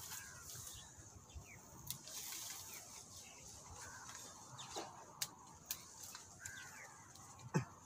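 Faint rustling and snapping of cassava leaves and stems as young shoots are picked by hand, with a few sharp clicks. Short faint bird chirps come in now and then.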